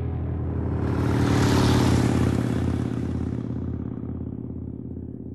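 Harley-Davidson motorcycle's V-twin engine running past: it cuts in suddenly, grows louder for about two seconds, then fades steadily as the bike moves away.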